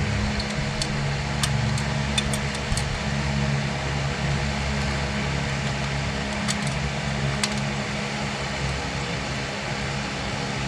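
Steady machine hum, like a running shop fan, with a few sharp light clicks of small metal engine parts being handled, several in the first few seconds and two more past the middle.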